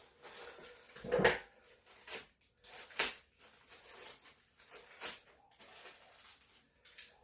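Scattered clunks and clinks of hand tools and metal parts being handled during car work, with a louder clunk about a second in and a sharp click about three seconds in.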